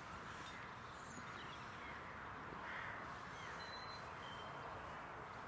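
Quiet outdoor background with a few faint, distant bird calls, arched caw-like notes, about two seconds in, three seconds in and again near the end.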